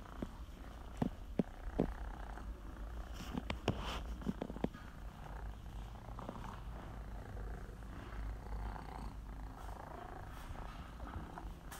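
A long-haired cat purring steadily while its head is being stroked, with a few sharp clicks in the first five seconds.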